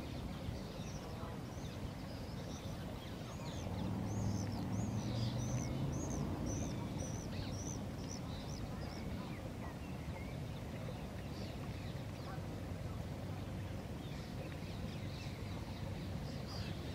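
Goslings, which look like Egyptian goose goslings, giving a string of thin, high peeps, about two a second, from about a second in until about nine seconds in, with a few more near the end. Steady wind rumble on the microphone runs underneath.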